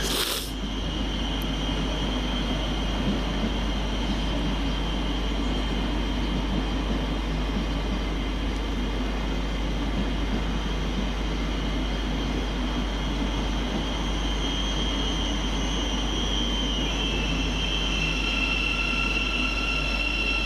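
Train running at a station with a steady low rumble and a thin high whine, and a short click right at the start. Near the end further whining tones come in and the main whine drops slightly in pitch.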